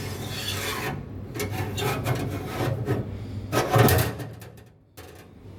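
Scraping and rubbing as a new tank heating element is slid into place in a DIHR commercial dishwasher's wash tank, in several strokes, the loudest scrape a little before the sound stops near the end.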